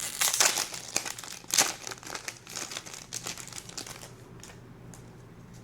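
Foil wrapper of a Topps Chrome baseball card pack crinkling as it is torn open, with sharp crackles in the first couple of seconds, dying away after about four seconds.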